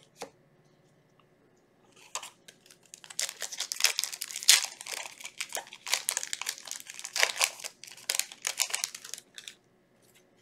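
Foil Yu-Gi-Oh booster pack wrapper crinkling and being torn open, a dense run of sharp crackles that starts about two seconds in and dies away about seven seconds later.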